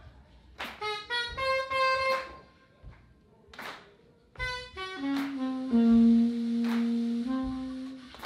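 Soprano saxophone playing unaccompanied: a quick phrase of short notes, a pause, then a descending run that ends on a long held low note, stepping up once near the end. Sharp cracks sound about every three seconds.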